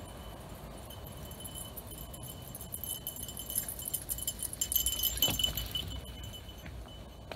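A mountain bike with a dog running beside it comes closer and passes near by on a trail covered in dry leaves. It rattles and jingles with many quick clicks, building to its loudest about five seconds in and fading soon after.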